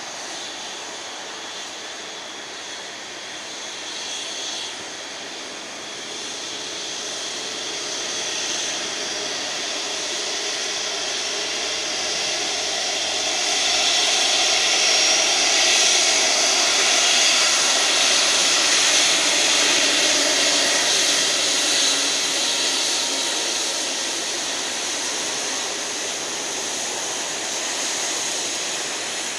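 Airbus A350 taxiing, its Rolls-Royce Trent XWB turbofans running at low power with a steady jet hiss and whine. The sound swells about halfway through as the aircraft turns toward the listener, then eases off as it passes.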